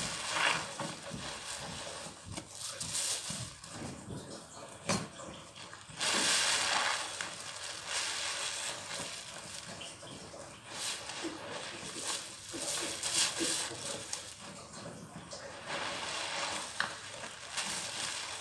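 A soap-soaked sponge squeezed over and over by hand in thick suds, a burst of wet squelching and bubbly fizz with each squeeze.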